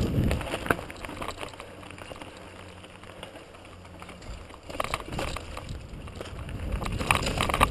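Mountain bike riding downhill over a rocky forest trail: tyres rolling over stones and the bike rattling and clicking, with wind rumble on the microphone at the start and the rattles getting busier from about five seconds in.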